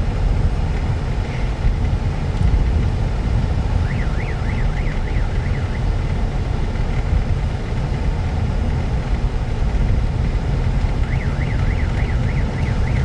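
A hidden electronic alarm siren gives a fast up-and-down warble, about four cycles a second, for about two seconds a third of the way in and again near the end. It sits quieter than the steady road and engine rumble inside the moving car's cabin.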